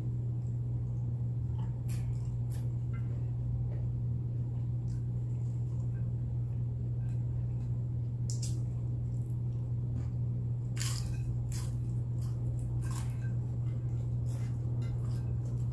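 Someone chewing nachos made with tortilla chips, with scattered brief crunches and clicks every few seconds. A steady low hum runs underneath and is the loudest thing throughout.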